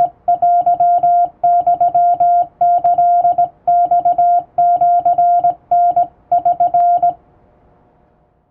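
Hand-sent Japanese (wabun) Morse code from a straight key: a steady single-pitch tone keyed on and off in dots and dashes grouped into characters. It stops about seven seconds in.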